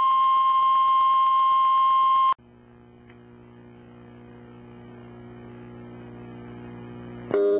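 1 kHz line-up reference tone that goes with the colour bars at the head of a 1985 videotape. It is loud and steady and cuts off suddenly about two and a half seconds in. A faint low hum follows and slowly grows louder, and just before the end several loud steady tones start together.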